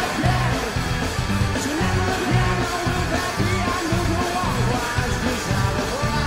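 Live rock band playing: a male lead vocal sung over strummed electric guitar, bass and a steady drum beat.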